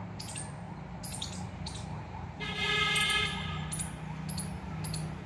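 A vehicle horn sounds once, a steady tone lasting about a second midway through, over a steady low traffic hum. Regular footsteps on paving tick at about two a second throughout.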